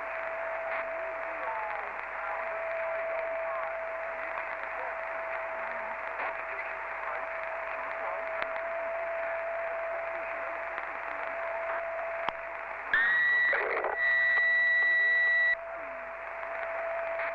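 CB transceiver tuned to 27.555 MHz, giving out a steady band-limited static hiss with a constant low whistle of a heterodyne carrier. About thirteen seconds in, a loud high-pitched tone comes in: it slides up briefly, then is held for about two and a half seconds with one short break.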